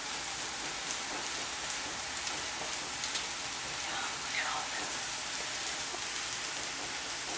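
Vegetables (onion, garlic, tomato and kale) sizzling steadily in a frying pan, with a few faint utensil clicks.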